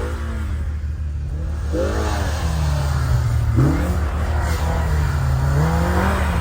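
Side-by-side UTV engine revving up and falling back several times, its pitch climbing and dropping every couple of seconds as the throttle is blipped.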